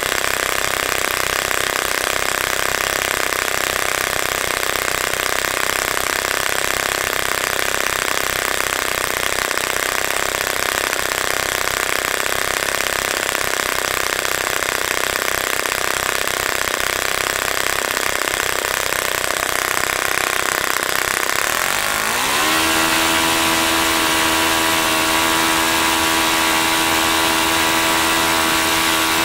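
OS FS-30 Surpass four-stroke glow engine, running with newly replaced valve springs, idling steadily. About three-quarters of the way through it revs up to a higher, steady note, then begins to throttle back near the end.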